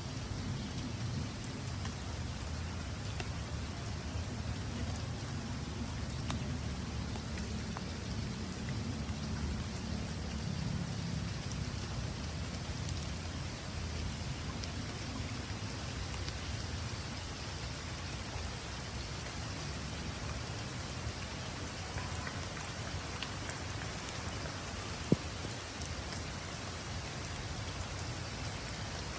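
Steady rain falling, a dense patter of raindrops with a deep rumble underneath that is heavier in the first half. One sharp click stands out near the end.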